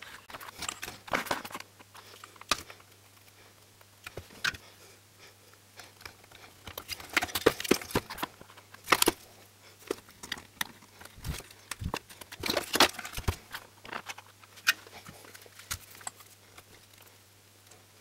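Irregular small clicks, taps and scrapes of hands and a tool fitting a replacement electrolytic capacitor into a CRT television's circuit board, with a low steady hum underneath.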